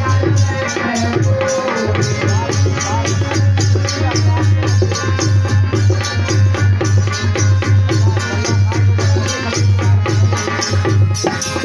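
Indian devotional folk music: a fast, steady hand-drum beat with a melody line over it.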